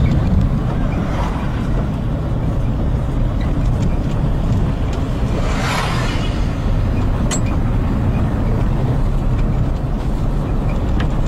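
Steady low rumble of a vehicle's engine and tyres heard from inside the moving vehicle. About six seconds in, another vehicle passes close by with a brief rising and falling rush of noise.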